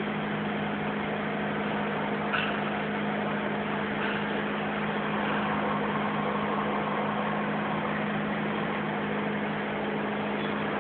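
Forklift running steadily while its hydraulics rotate a paper roll clamp, with a constant low hum and one short click about two and a half seconds in.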